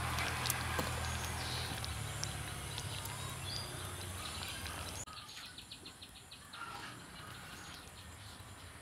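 Quiet background ambience: steady noise with a low hum and a few faint bird chirps. About five seconds in it drops abruptly to a quieter background.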